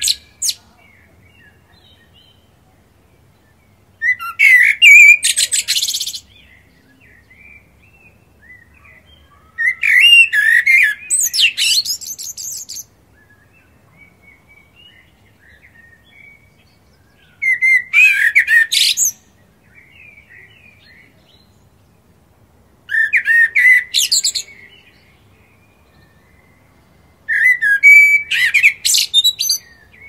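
Common blackbird singing: five separate song phrases with pauses of a few seconds between them. Each starts with a lower warble and ends in a high, thin twitter.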